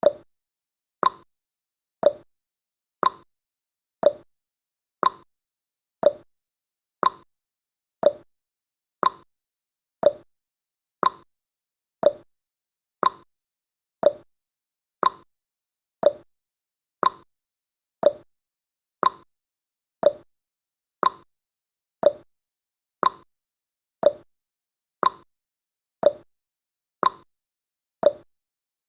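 Countdown timer's clock tick-tock sound effect: sharp ticks, about two a second, alternating a lower and a higher tick.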